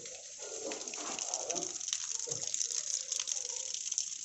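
Water running steadily from a tap, gushing into a drum or tank, louder from about a second in.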